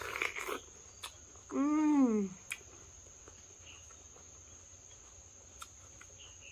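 A crunchy bite into a raw, peeled yacon tuber, followed by a woman's single hummed "mmm" that rises and falls, then a few sharp crunches of chewing. A steady high insect trill runs underneath.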